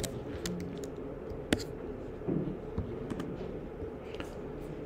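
A few scattered computer keyboard keystrokes and mouse clicks, one sharper click about a second and a half in, over a steady low background hum.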